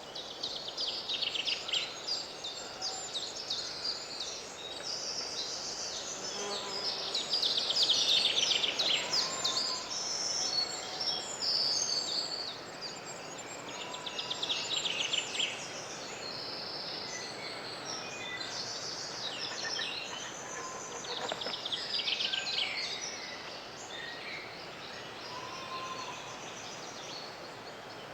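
Woodland bird chorus: several birds singing at once with rapid chirps and trills, joined now and then by short lower whistles, over a steady background hiss.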